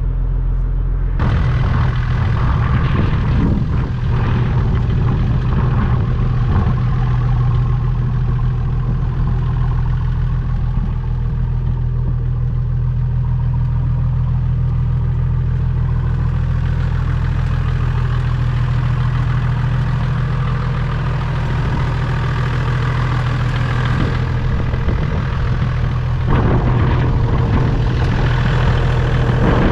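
Turbo diesel straight-six of a Toyota Land Cruiser 80 series idling steadily through a new stainless steel exhaust, with a low, even drone.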